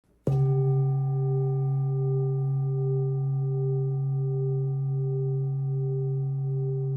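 A handmade Nepalese bronze full moon singing bowl, one of a seven-chakra set, struck once with a mallet a moment in. It then rings on steadily with several overtones, one of them wavering in a slow, regular pulse.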